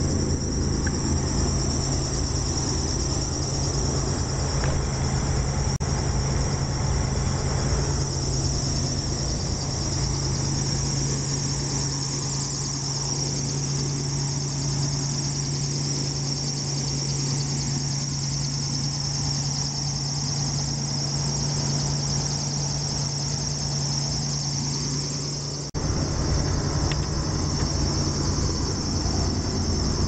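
Steady, high-pitched squeal of a slipping drive belt, heard over a low, even running hum from the motorhome's machinery while the air horn compressor fills its tank.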